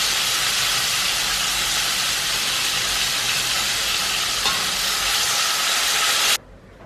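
Marinated chicken pieces frying in hot oil in a pot on medium heat, a steady sizzle that cuts off suddenly near the end.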